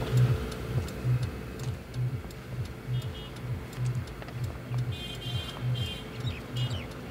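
Background music score built on a steady low pulse, about two beats a second, with a few brief high chirps about three and five seconds in.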